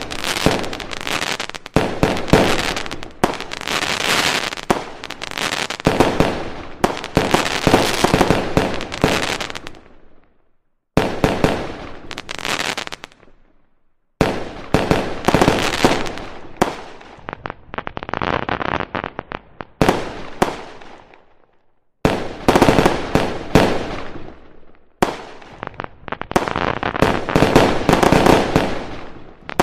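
Aerial fireworks shells bursting in quick succession: booms overlaid with dense crackling. The sound breaks off abruptly a few times before starting again.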